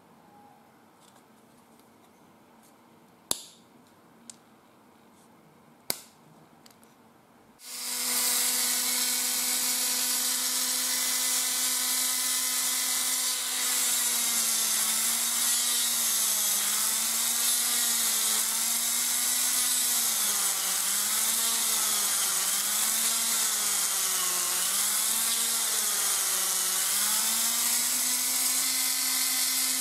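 Two light clicks, then a small handheld rotary tool starts about eight seconds in and runs with a steady high whine. Through the middle its pitch dips and recovers again and again as the bit is worked against PVC, then it settles back to a steady speed near the end.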